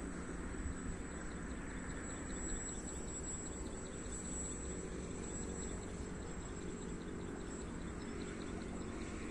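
Insects, taken for crickets, trilling steadily in a thin, high tone with faint regular pulses, over a continuous low rumble.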